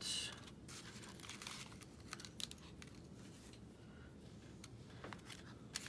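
Faint rustling and light clicking of small paper scraps being sifted through by hand in a plastic storage case.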